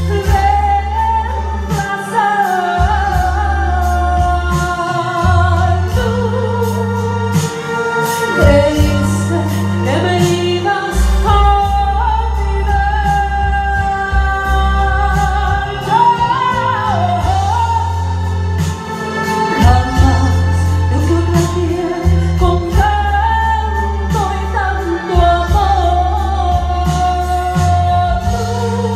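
A woman singing a song into a handheld microphone, amplified through PA speakers, over instrumental accompaniment with a heavy bass that drops out briefly now and then.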